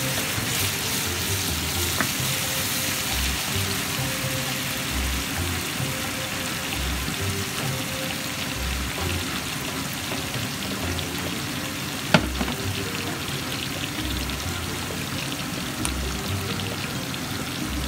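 Sliced onions and minced garlic sizzling in olive oil in a frying pan, a steady hiss throughout. A single sharp click about twelve seconds in.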